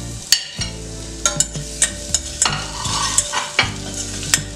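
Chopped garlic sizzling in hot butter in a small metal pressure cooker pan, with a spoon stirring it and clinking sharply against the metal several times.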